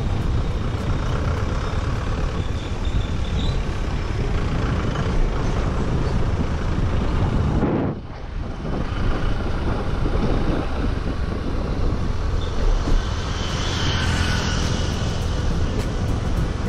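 Riding noise from a Honda Activa scooter: wind rushing over the microphone and tyre and road noise, with the small engine running underneath. It drops out briefly about halfway through, then resumes.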